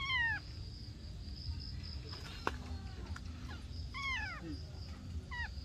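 Newborn kitten mewing: three short high cries, each falling in pitch, one at the start, one about four seconds in and one near the end. A steady high insect trill runs underneath.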